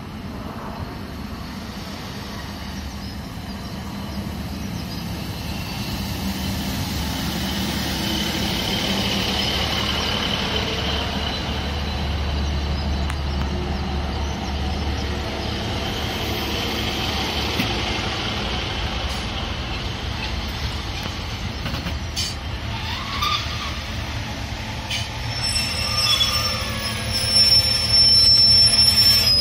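A diesel multiple unit pulling into a platform and passing close by, its underfloor diesel engine droning and its wheels rumbling louder as it nears. Near the end its brakes squeal in high thin tones as it slows to a stop.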